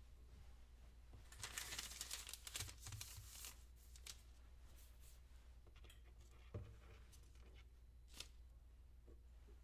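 Quiet kitchen ambience over a faint low hum: about a second in, a couple of seconds of crisp crinkling rustle, then two short soft clicks later on.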